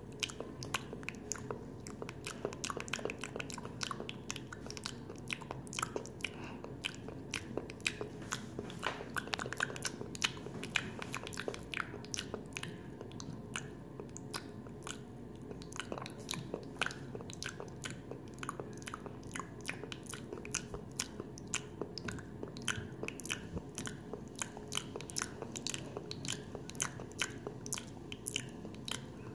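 A person chewing and biting food close to the microphone, with many crisp crunching clicks several times a second over a steady low hum.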